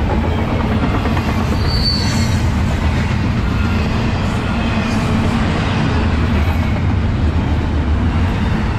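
Double-stack intermodal well cars of a freight train rolling past: a steady, loud noise of steel wheels on rail. A brief high-pitched squeal sounds about two seconds in.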